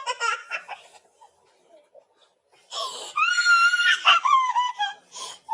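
Baby laughing: a string of quick laugh pulses, a pause of about a second and a half, then a long high-pitched squeal that breaks into more choppy giggles.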